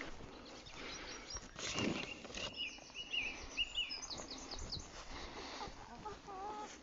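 A handful of chicken feed pellets rustles as it is scooped from a plastic barrel and tossed onto grass. Meanwhile a songbird gives a quick run of high chirps, and near the end a chicken makes a short call.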